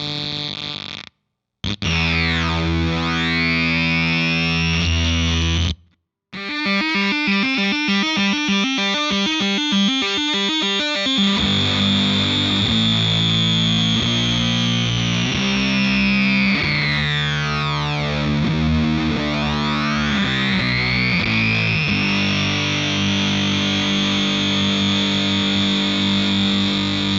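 Electric guitar through the Rainger FX Dr. Freakenstein fuzz pedal into a Marshall Vintage Modern amp, playing heavily fuzzed held chords and single notes. The pedal's phaser-like mod sweeps the tone up and down, slowly for most of the passage. A fast wobble takes over for about five seconds early on. The sound cuts out briefly twice in the first few seconds.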